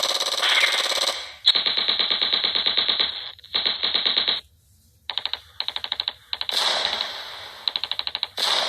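Dubbed-in war sound effects: several bursts of rapid automatic gunfire of different lengths, the longest running about three seconds. Long noisy blasts that fade slowly open the stretch and return after about six and a half seconds.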